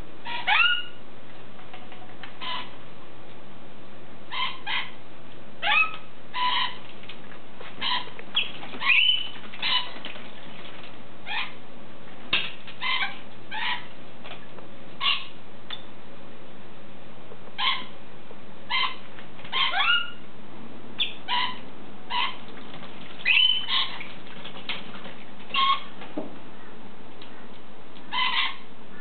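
Parrot calls: short, sharp squawks and chirps, some sweeping upward in pitch, coming every second or so with brief gaps.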